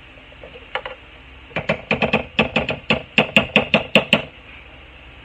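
A spoon tapped quickly and repeatedly against the rim of a square pan, knocking off cream of chicken: a run of about fifteen sharp clinks, roughly five a second, starting about a second and a half in and stopping near the end.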